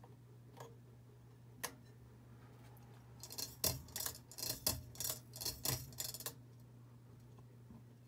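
Ceiling fan running with a steady low hum, with two single clicks in the first two seconds, then about three seconds of rapid, loud clicking and rattling in the middle.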